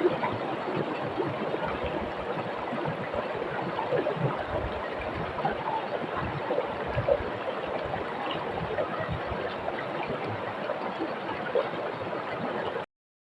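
Water of a rocky mountain river rushing steadily over stones, with small gurgles through it. It cuts off suddenly near the end.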